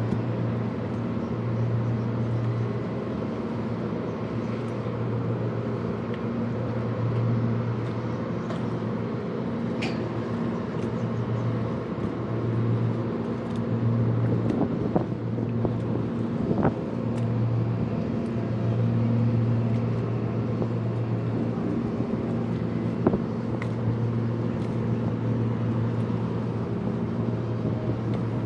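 Steady low engine drone with a deep hum that swells and fades every couple of seconds, and a few faint clicks.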